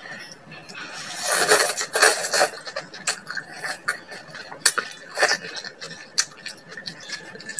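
Close-up slurping of long strands of kangkong (water spinach) in coconut-milk sauce, with a long slurp about a second in and a shorter one about five seconds in, between wet mouth clicks and light clinks of chopsticks on the bowl.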